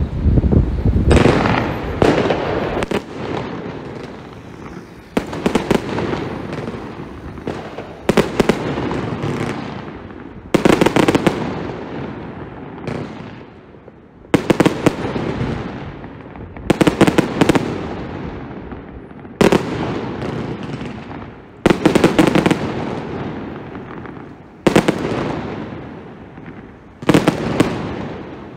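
Funke Fermata 100-shot firework cake firing: volleys of quick sharp reports about every two and a half to three seconds, each volley trailing off in a fading rumble of bursting shells.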